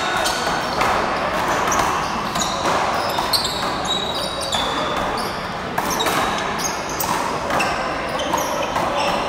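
Rubber handball being struck and smacking off the wall and court floor in a series of sharp hits during a rally, with short sneaker squeaks on the court floor in between.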